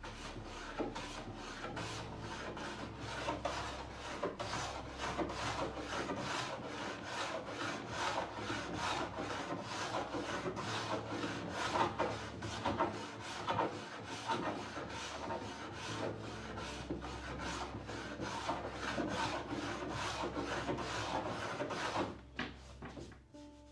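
Hand strokes rubbing or abrading a wooden door, back and forth at about three strokes a second, keeping up a steady rhythm, then stopping near the end.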